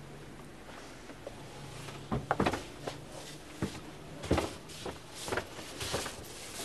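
A string of sharp knocks and thumps on a wooden office desk, starting about two seconds in and coming at uneven gaps of about half a second, as a rubber stamp and other desk items are handled, with paper rustling near the end.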